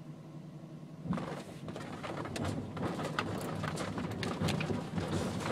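Vehicle driving slowly along a rough gravel dirt track, heard from inside the cab: a low engine hum, then from about a second in the crunch of tyres over stones with frequent sharp knocks and rattles.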